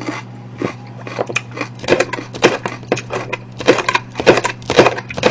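Chef's knife slicing a red bell pepper into strips on a plastic cutting board: a run of uneven knife taps, sparse at first and quicker from about two seconds in, over a steady low hum.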